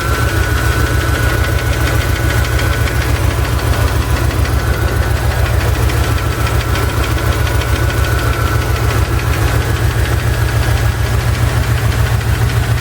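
Chevy ZZ4 350 small-block V8 idling with a steady, rapid knocking or ticking that a valve lash adjustment has not cured; the owner wonders whether it is piston slap or a spun bearing.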